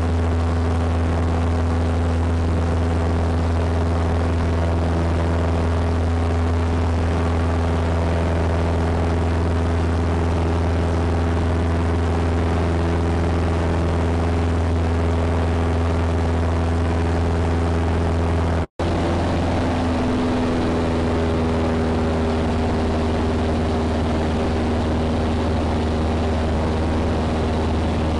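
Small propeller plane's engine and propeller droning steadily, heard from inside the cabin. The sound cuts out for an instant about two-thirds of the way through, then comes back at a slightly different pitch.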